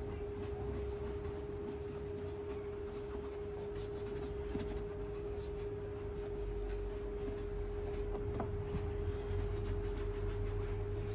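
A steady hum held at one pitch, over the faint rubbing of fingers working mink oil into the leather of a boot upper.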